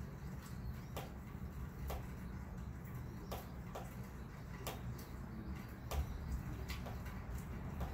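Outdoor storm ambience: a steady low rumble with scattered sharp ticks, irregular and about one or two a second.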